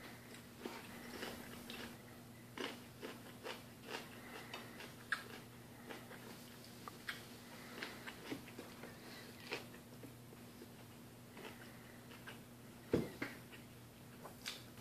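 A person eating with his fingers: chewing and mouth sounds with many small irregular clicks as fingers and rice touch a ceramic plate, and one louder knock near the end. A steady low hum runs underneath.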